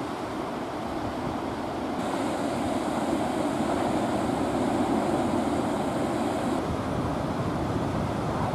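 Ocean surf washing and breaking onto a sandy beach, a steady rushing noise, with wind buffeting the microphone.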